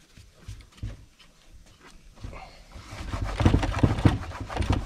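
Cleaning rag wiping down the body and top handle of a Husqvarna 272 XP chainsaw. A few faint handling clicks come first, then quick, rough rubbing strokes start about two seconds in and grow louder after three.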